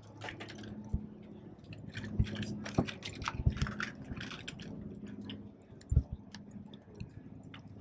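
Walking on wooden pier planks: irregular taps, clicks and rustles, with a few heavier knocks and a faint low hum underneath.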